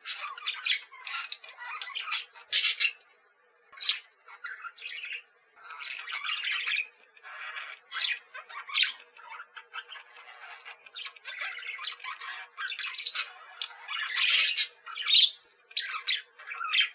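Pet budgerigars chattering and squawking in a stream of short, harsh calls, with a brief lull a few seconds in.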